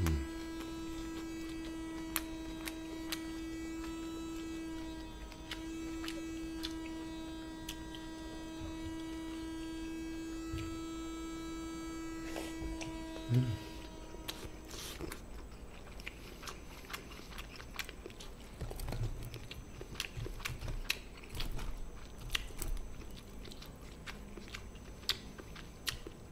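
A steady electrical hum, then from about halfway close-up chewing and crunching of crispy fried sweet-and-sour pork (tangsuyuk), with small mouth clicks.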